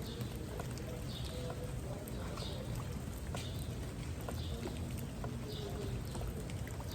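Steady rain with scattered drops ticking, over a low steady rumble, while a bird gives a short high call about once a second.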